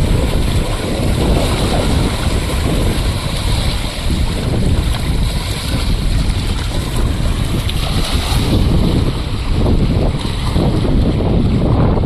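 Strong gusty wind buffeting the microphone, with choppy river water washing underneath.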